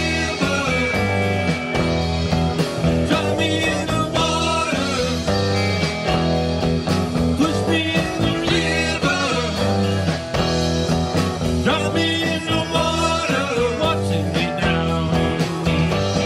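Live classic rock band playing: electric guitars, electric bass and a drum kit, amplified through a PA.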